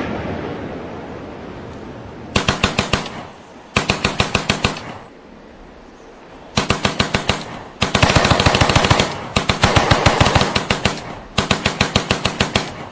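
The fading rumble of an explosion, then automatic gunfire in six bursts of one to two seconds each, at about ten shots a second.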